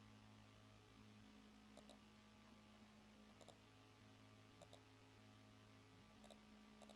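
Near silence with a few faint computer mouse clicks, several in quick pairs, spaced a second or more apart over a low electrical hum.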